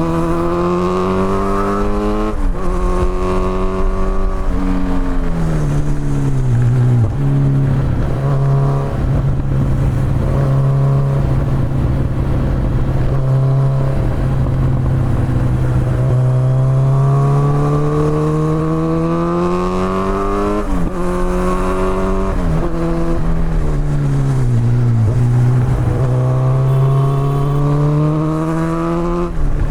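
Kawasaki Z900's inline-four engine through an Akrapovic exhaust, accelerating through the gears with a rising note that drops at each upshift, then easing off to a steady low note for several seconds. It revs up again through two more shifts, slows, and pulls away once more near the end.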